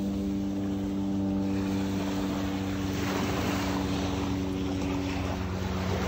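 An engine drones steadily: a low hum with several steady overtones that holds unchanged, over a faint even rush of noise.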